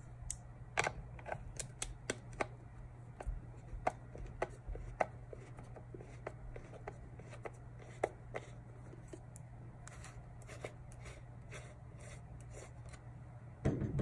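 Irregular small clicks and ticks of a screwdriver turning a small screw in a clear plastic turn signal lens housing, coming fast at first and then sparser, over a low steady hum. A louder clatter near the end as the screwdriver is set down on the rubber mat.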